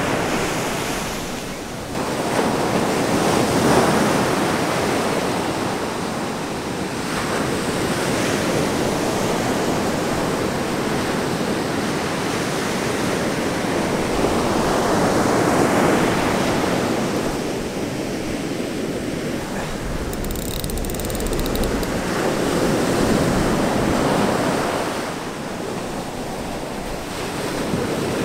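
Surf breaking on the beach, a steady wash of waves that swells and ebbs several times, with wind on the microphone.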